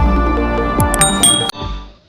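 Background music with a beat, ending with a short bright chime about one and a half seconds in. A low tail then fades out.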